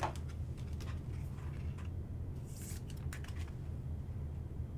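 Light clicks and rustles of trading cards and their packaging being handled, with a brief swish about two and a half seconds in, over a steady low hum.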